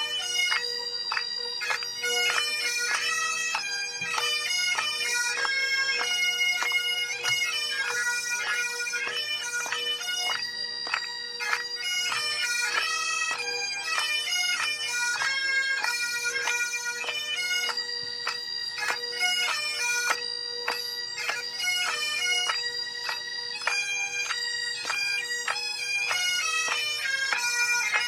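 Great Highland bagpipes of a pipe band playing a tune: quick-changing chanter melody notes over a steady, unbroken drone.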